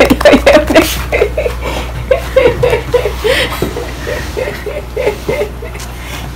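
A person laughing: a long run of short chuckles, about four a second, fading out.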